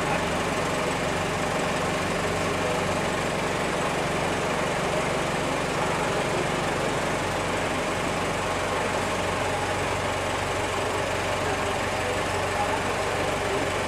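A steady mechanical hum with a low drone.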